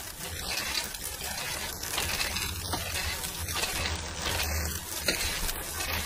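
Road bike drivetrain turned by hand at the crank: a freshly fitted 9-speed chain running over the chainrings and rear sprockets with a steady noisy whir and faint ticks. The new chain replaces a stretched one that had been causing a grinding noise from the crank area.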